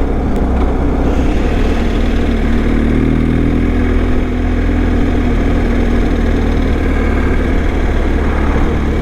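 BMW R1250 boxer-twin motorcycle running at a steady cruise, heard from the rider's position with heavy wind rumble on the microphone.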